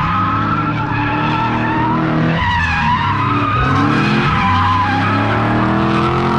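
Drift cars sliding sideways through a corner: engines revving up and down over continuous tyre squeal.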